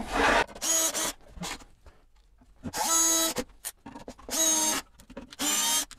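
Cordless drill-driver driving self-tapping screws into wood. The motor whines in four short, steady runs of under a second each, with pauses between.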